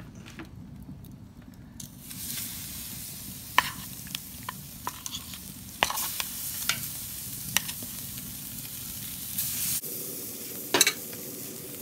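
Seasoned ribeye steaks sizzling on a hot grill grate over a wood fire. The sizzle starts about two seconds in as the meat goes on, with several sharp clicks of metal tongs against the grate.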